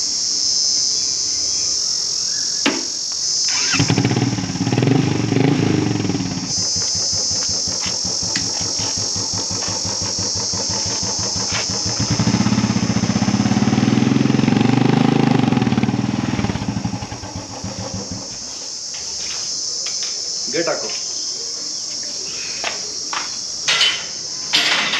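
Royal Enfield single-cylinder motorcycle engine running in two stretches, first about four seconds in and again from about twelve to seventeen seconds, with an even pulsing beat. Crickets chirr steadily throughout.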